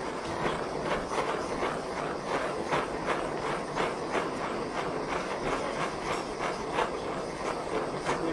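Handheld butane culinary blowtorch burning steadily with a hiss that flutters about three times a second, its flame played over the top of a dessert to brown it.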